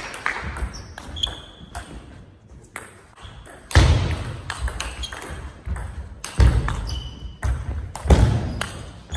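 Table tennis rally: the ball clicking repeatedly on the table and the players' bats, with a few louder thumps about four, six and a half and eight seconds in.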